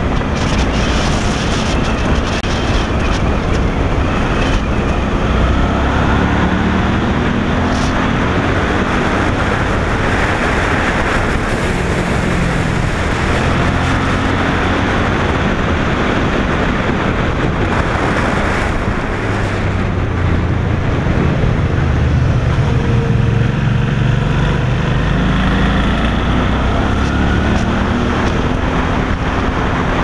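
Motorcycle engine running under way, its pitch rising and falling several times as the rider accelerates and eases off, over a steady rush of wind on the microphone.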